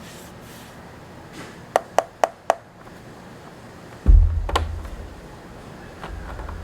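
Handling sounds while a keyboard is unboxed: four quick light clicks in a row, then about a second and a half later a heavy low knock, like something being set down on a desk, with another click just after it.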